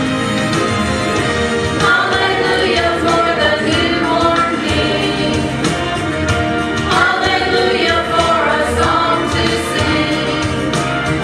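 Small mixed church choir of men and women singing together over an instrumental accompaniment.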